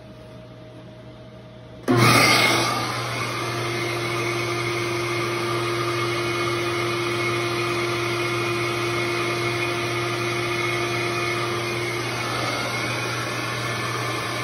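Shop vac switched on about two seconds in, with a brief surge at start-up, then running steadily. It is pulling air through the intake port of a bone-stock small engine held at 370 thousandths valve lift, as a flow-bench test.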